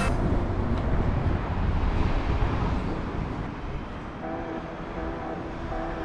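Outdoor ambience: a steady rumble and hiss, loudest in the first few seconds and then easing. Faint steady tones come in about four seconds in.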